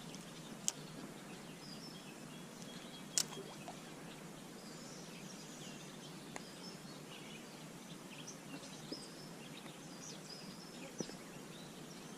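Wild birds chirping, many short calls scattered throughout, over a steady background hiss of outdoor ambience; a couple of sharp clicks stand out, one just under a second in and a louder one about three seconds in.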